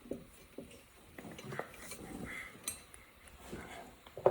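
Scattered light metal clinks and taps, spaced irregularly, as a bolt is threaded in by hand and tools are handled on a 125cc ATV's rear brake.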